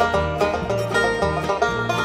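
A bluegrass band plays an instrumental break, the banjo picking quick rolls over a strummed acoustic guitar and fiddle, with a steady walking bass line underneath.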